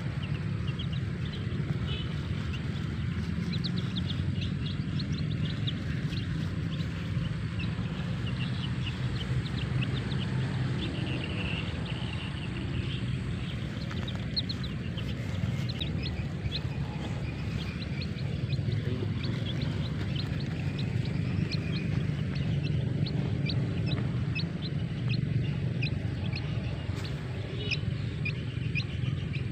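Young chicks peeping in many short, high cheeps scattered throughout, over a steady low rumble.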